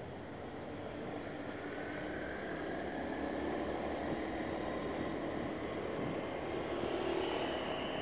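Motorcycle engine running while riding, mixed with wind rush; the engine note rises slowly and the sound grows a little louder as the bike picks up speed.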